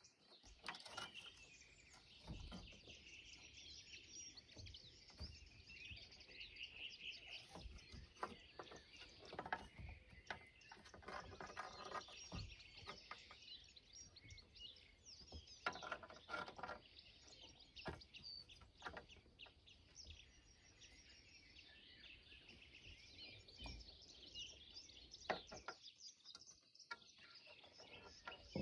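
Faint birds chirping and calling steadily in the background, with scattered soft clicks and rustles.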